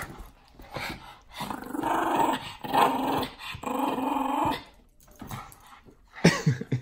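Small dog growling in play over a toy, in three drawn-out stretches of about a second each, with a short louder sound near the end.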